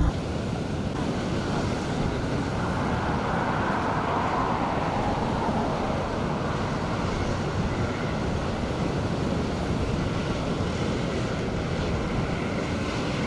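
Steady rushing of strong wind and breaking surf, with wind buffeting the microphone.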